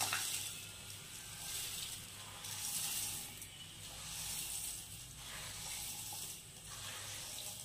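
Roasted flattened rice (aval) with cashews and raisins poured into boiling water in a pan, which hisses and bubbles in about five swells as the flakes go in. A low steady hum runs underneath.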